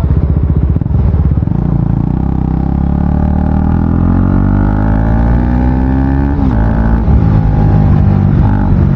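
KTM Duke 250's single-cylinder engine running with its exhaust muffler removed, very loud and bassy. It revs up in a long rising pitch from about three seconds in, drops sharply at about six and a half seconds, then runs on.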